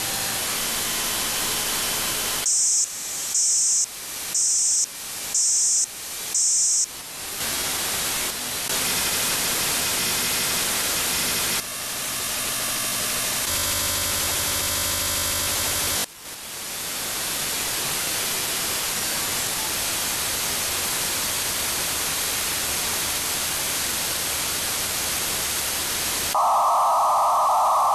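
Audio from an SDRplay RSP1A software-defined radio in upper-sideband mode, tuned across the Inmarsat L-band downlink: a steady hiss of static. About three seconds in come five short hissing bursts about a second apart, and around the middle a brief buzzing stretch of steady tones. Near the end a loud, rushing, band-limited digital data carrier comes in as the receiver lands on a signal.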